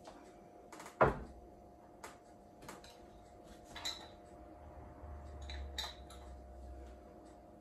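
Glass jars and their lids knocking and clinking as they are handled: one sharp knock about a second in, then several lighter clinks, two of them with a short ring.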